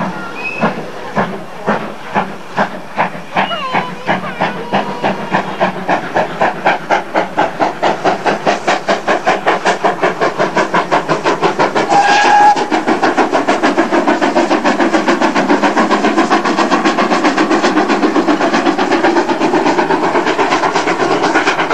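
GWR steam tank locomotive working hard as it accelerates, its exhaust beats quickening from about one a second to around five a second. About halfway through, a short blast on its steam whistle.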